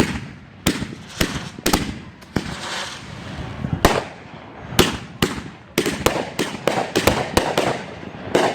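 Consumer fireworks going off in an irregular series of sharp bangs, about fifteen in all, coming faster in the second half, with a hissing, crackling haze between them.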